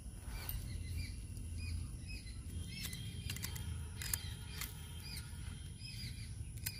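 Small knife scraping skin off a taro root, with a few sharp clicks about halfway in and near the end. Birds chirp over and over in the background above a low rumble and a steady high whine.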